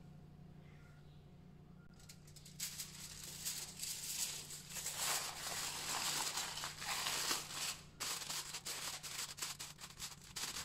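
Aluminium foil crinkling and rustling as it is pressed and folded down over the rim of a baking dish. The crinkling starts about two and a half seconds in and runs as a dense crackle of small clicks until near the end.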